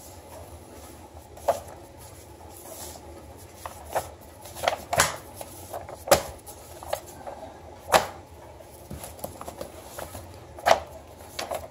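Stacks of glossy paper magazines being handled and moved about on a wooden tabletop: paper rustling and sliding, with a handful of sharp slaps as issues are set down.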